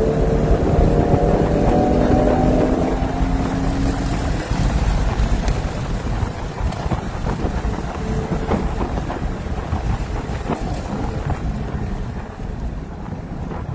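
Porsche Cayman GT4's flat-six engine accelerating hard in fourth gear, its pitch rising for the first few seconds. It then drops away as the driver lifts off and brakes, leaving mostly wind and tyre noise.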